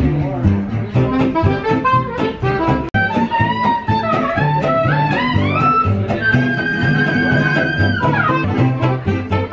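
Small live jazz band playing an upbeat 1920s-style swing tune: acoustic guitars strum and an upright double bass plucks a steady bass line. A lead instrument climbs up a melody and holds a long high note that slides down about eight seconds in. The sound cuts out briefly about three seconds in.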